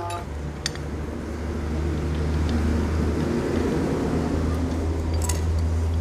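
Motorcycle clutch parts clinking lightly a few times as they are handled and pulled from the clutch basket, over a steady low hum of machinery.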